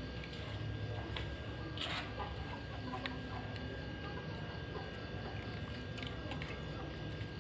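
Quiet steady low room hum with a few faint soft clicks and a short rustle about two seconds in, as of light handling.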